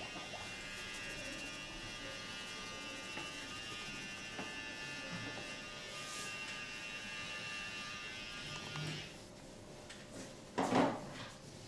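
A small handheld electric motor buzzing steadily, stopping about nine seconds in; a brief loud noise follows a second and a half later.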